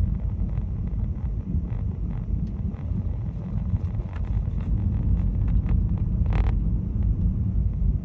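Low, steady rumble of a car driving over a snow-covered road, heard from inside the cabin. A few short crackles come between about four and six and a half seconds in.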